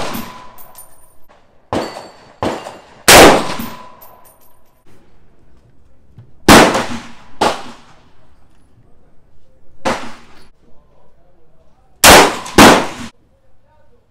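Rifle shots fired one at a time at irregular spacing: five loud reports, two of them about half a second apart near the end, with three fainter shots between. A few of the shots are followed by a short metallic ring.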